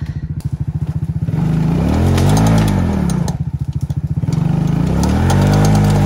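ATV engine idling with an even chug, then revved up and let back down about two seconds in, then revved again and held high as the four-wheeler pulls a log under load.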